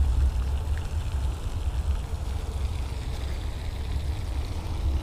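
Wind buffeting the camera microphone: a low, unsteady rumble that rises and falls throughout.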